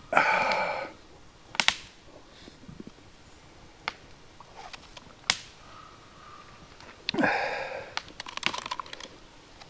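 Wood fire in a steel fire pit crackling, with a few single sharp pops spread through, and two short louder noisy bursts about a second in and near the end.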